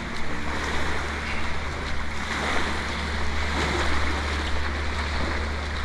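Small waves washing onto a sandy beach, a steady rushing with wind on the microphone and a steady low hum underneath.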